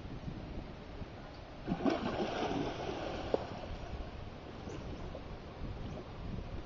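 River water splashing as a dog plunges in and swims: a burst of splashing about two seconds in, then quieter paddling and lapping.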